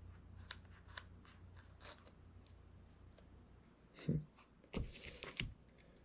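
Faint rustling and clicking of a small cardboard filter box being handled and opened by hand, with three soft knocks in the second half.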